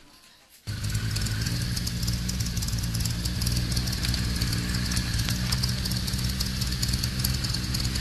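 Motorcycle engine idling steadily. It cuts in abruptly about a second in, with a fast, busy ticking over the low engine note.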